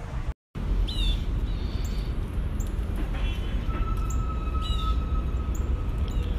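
Several short, high bird chirps that sweep downward, over a steady low rumble, with a thin steady whistle in the middle.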